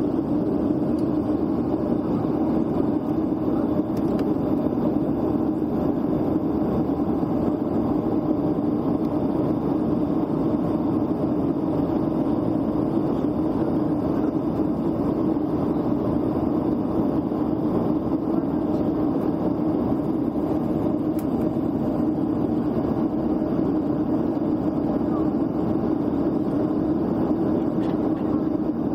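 Jet airliner cabin noise in flight: a steady drone of engines and rushing air heard from a window seat, strongest in the low-middle range.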